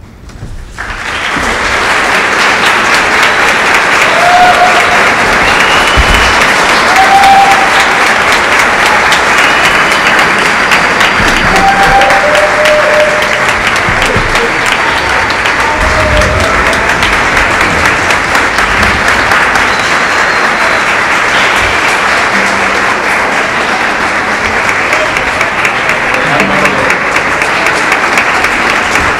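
Audience applause breaks out at the end of the piece and carries on dense and steady, with scattered shouted cheers above it.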